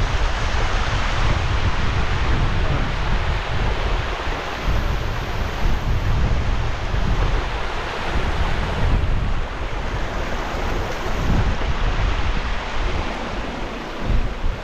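Wind buffeting the microphone in gusts, over the steady rush of a small mountain stream cascading down over rocks.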